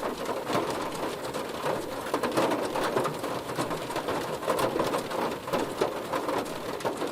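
Heavy rain hitting a car, a dense, steady patter of many drops striking the bodywork.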